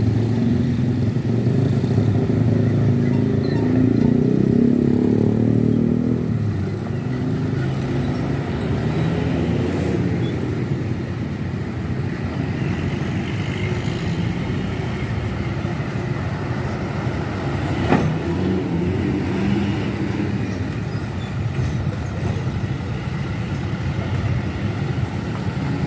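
Heavy diesel engine rumbling close by as road vehicles pass, its pitch shifting and loudest for the first six seconds, then settling into steadier, quieter traffic noise. A single sharp click about eighteen seconds in.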